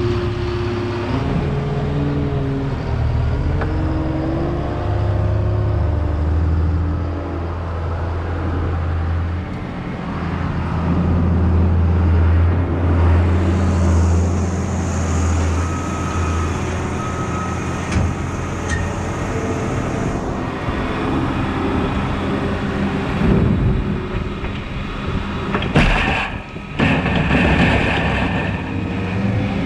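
Cat 272D skid steer's diesel engine running under hydraulic load as it carries and raises a full bucket of chicken manure, its pitch shifting as the operator works the controls. Near the end the manure rushes off the tipped bucket into the spreader.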